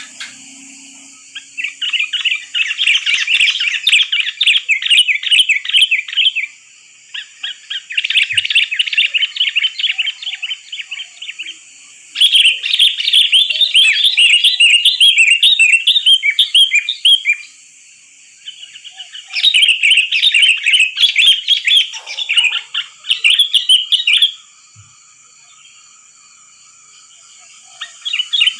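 Sooty-headed bulbul (kutilang) singing in full voice: fast, chattering runs of bright whistled notes in four bouts of about five seconds each, separated by short pauses, with another bout starting near the end. A faint steady high-pitched hum runs underneath.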